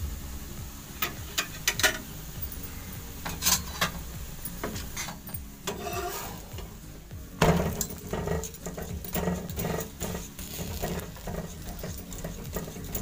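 A spatula scraping and tapping against a hot tawa while a besan chilla cooks on it: scattered clicks, one loud knock about seven and a half seconds in, then a quick run of taps.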